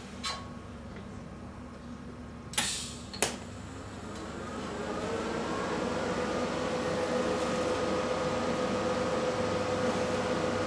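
Two sharp metal knocks as the workpiece is positioned, then a TIG welding arc from an HTP Invertig 221 welder. The arc swells over a couple of seconds as the foot pedal brings up the current, then holds as a steady hum for about six seconds.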